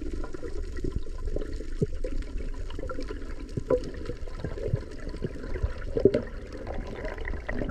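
Muffled water sound recorded underwater: an uneven churning and bubbling with scattered small knocks.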